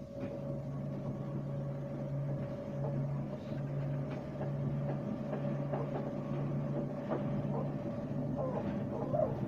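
Running noise of an RER B commuter train heard from inside the carriage: a steady rumble with a low pulsing hum and a higher steady whine, and scattered clicks and rattles from the track and car body, more of them in the second half.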